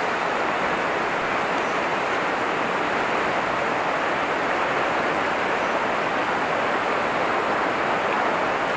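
Steady rushing of river water flowing over rocks.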